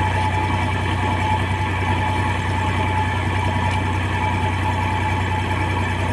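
Tractor diesel engine idling steadily while the tractor sits stuck in mud.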